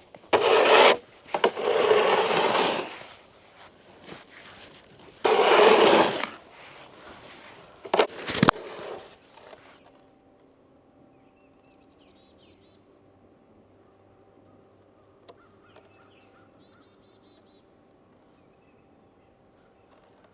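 A snow shovel scraping and pushing snow across pond ice in four strokes over the first nine seconds, the last ending in a sharp knock. Then it is quiet, with faint birds chirping now and then.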